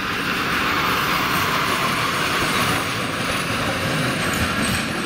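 Red ZSSK electric locomotive running through the station tracks: a steady mix of wheel-on-rail noise and a low rumble.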